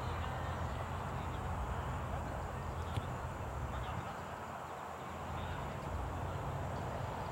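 Steady outdoor background noise with a low rumble, faint distant voices and a single sharp click about three seconds in.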